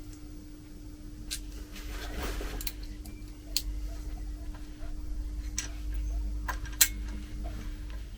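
Scattered sharp clicks and taps of plastic parts being handled and fitted together as a 3D printer's spool holder is slid onto its bracket, with a short scrape about two seconds in and the sharpest click near the end. A steady low hum runs underneath.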